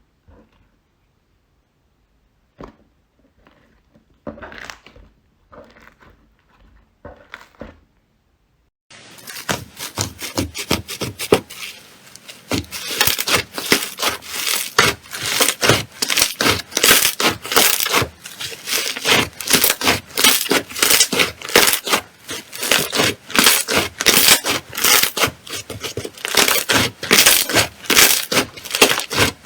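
Slime being pressed and worked by hand: a few soft separate squishes, then from about nine seconds in a loud, dense run of rapid crackling pops.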